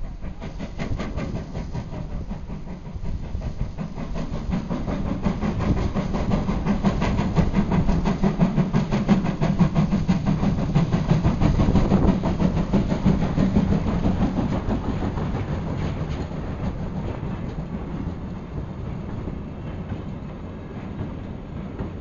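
Freight train passing, its wagon wheels clattering over the rail joints in a fast, dense run of clicks over a rumble. It grows louder to a peak around the middle and then fades away.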